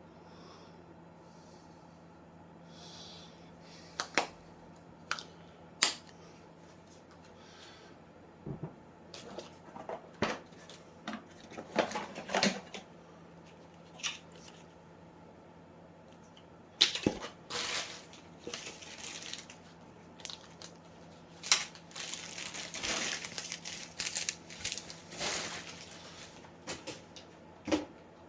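Hands unpacking and handling crossbow parts and packaging: scattered sharp clicks and knocks, with stretches of rustling and crinkling, over a faint steady hum.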